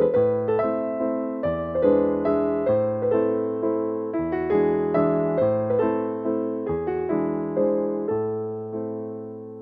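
Background piano music: a soft melody of evenly spaced notes, each fading away, over bass notes that change about every two and a half seconds.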